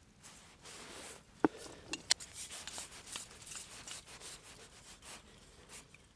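Rustling and rubbing as camping cookware pieces and their bags are handled, with two sharp clicks about one and a half and two seconds in.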